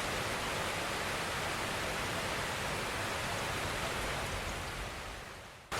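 Steady rush of falling water from a large waterfall, Iguazu Falls. It fades away over the last second or so.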